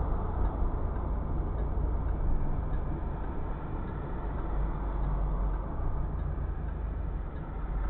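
Steady rumble of a car driving, its tyre and engine noise heard from inside the cabin.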